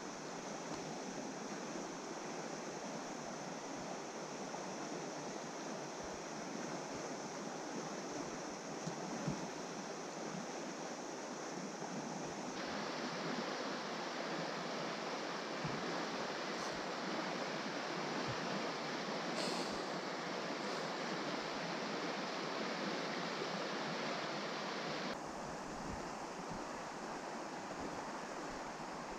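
Steady rushing of flowing river water. The rush turns brighter and a little louder about twelve seconds in, then drops back near the end.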